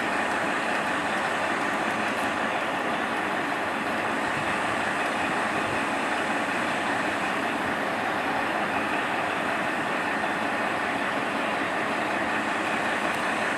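KiHa 40 diesel railcars standing with their engines running steadily at idle.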